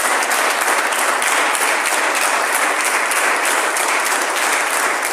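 Church congregation applauding steadily, a dense sustained clapping.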